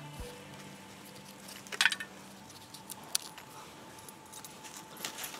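A few light metallic clinks and taps of small pieces being set into an open tin fire kit that doubles as a charring tin, the clearest about two seconds in and another a second later.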